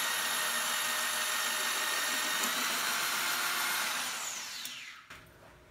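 Hole saw on a tubing notcher running and cutting a coping notch into a metal tube, a steady grinding whir. About four seconds in, the drive is shut off and the saw winds down with a falling whine, the stop set so the cut ends just short of going through.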